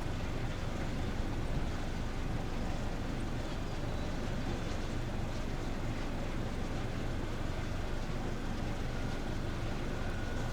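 Steady low rumble of a vehicle on the move, with no change through the stretch.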